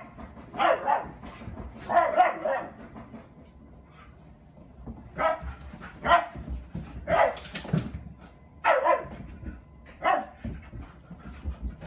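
A dog barking in play, about nine short single barks at uneven intervals, with a pause of about two seconds after the first few.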